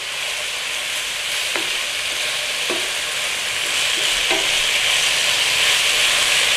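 Fish pieces and Chinese celery sizzling in oil and sauce in a non-stick wok while being stirred with a wooden spatula. The sizzle grows steadily louder, with a few light knocks of the spatula against the pan.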